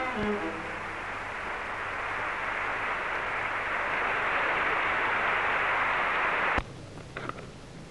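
Audience applauding, swelling gradually, then cut off abruptly about six and a half seconds in.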